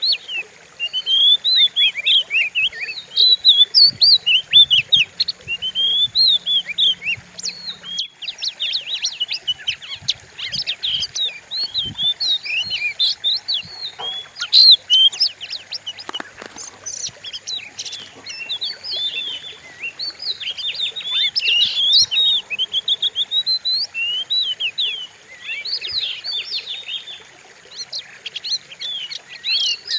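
Oriental magpie-robin (kacer) singing a fast, unbroken stream of varied whistles and sharp chirps, with a brief break about eight seconds in.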